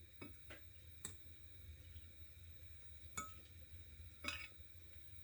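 A few faint, scattered taps and clicks of a kitchen utensil against a pot while mashed potatoes are being mixed, over a low steady hum.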